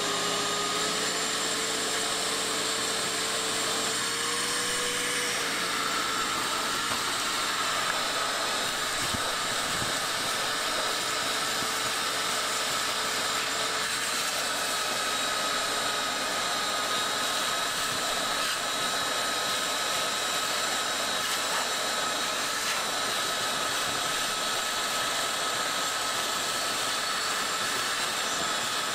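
Electric vacuum running steadily as one even whine while it sucks dirt and mouse-nest debris off the top of an engine. Its pitch rises slightly about four seconds in, then settles.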